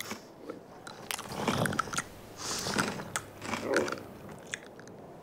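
Cartoon sound effect of a camel chewing and crunching on a brush held in its mouth, in three crunchy bouts with small clicks between them.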